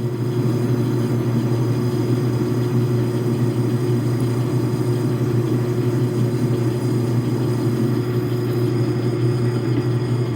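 Logan metal lathe running steadily, its motor and drive giving an even low hum.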